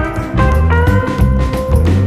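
Background instrumental music in a bluesy swing style, with a bass line, drums and a held lead note that slides up slightly.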